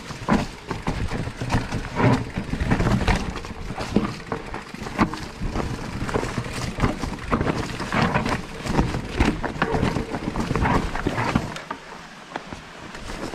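Specialized Turbo Levo e-mountain bike clattering down a rocky trail: tyres crunching over stones and the bike knocking and rattling on each bump, over a constant low rumble. It gets quieter near the end.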